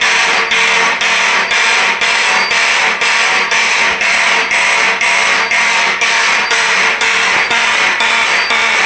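Electromechanical fire alarm horns sounding in march-time code, about two raspy blasts a second. The owner takes the raspiness as a sign that the horn mechanisms still need adjusting.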